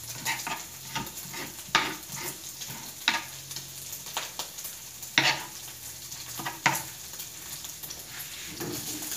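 Diced bacon sizzling in a small frying pan, with irregular sharp knocks of a knife chopping chives on a plastic cutting board.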